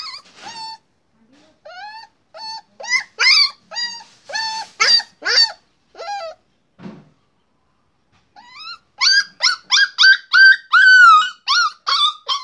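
A puppy barking in short, high-pitched yips and whines: a string of single calls, a pause of about two seconds, then a faster run of yelps with one drawn-out whine. It is the puppy demanding food from its owner.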